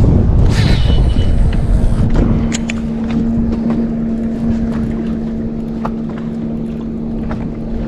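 Steady electric motor hum aboard a bass fishing boat, with low wind rumble on the microphone in the first couple of seconds and a few light knocks.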